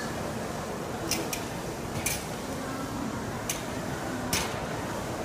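Train station ambience: a steady wash of background noise with faint voices, broken by a few sharp clicks or taps, about one, two, three and a half and four and a half seconds in.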